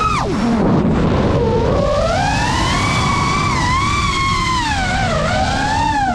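FPV quadcopter's brushless motors whining, their pitch dropping steeply at the start as the throttle is cut, then climbing slowly and rising and falling again with the throttle.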